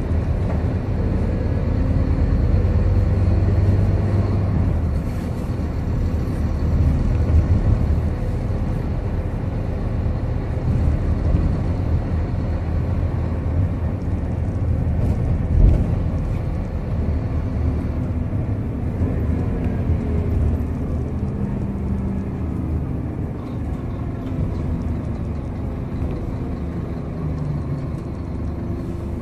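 Scania K230UB single-deck bus running along a town street, heard from inside the passenger cabin: the diesel engine and ZF gearbox hum over a steady low road rumble, the engine note rising and falling. A single sharp knock about halfway through.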